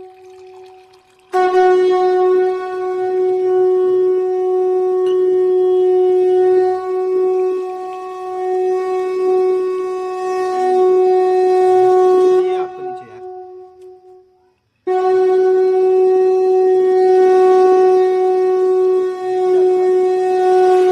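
A horn-like wind instrument blows one steady note and holds it for about thirteen seconds. It breaks off briefly, then sounds the same note again.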